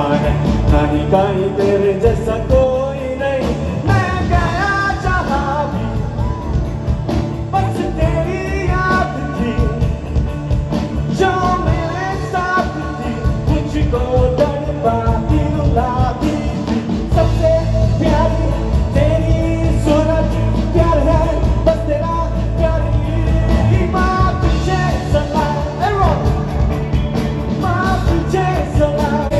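Live rock band playing, amplified through large stage speakers: a lead singer over guitars and drums.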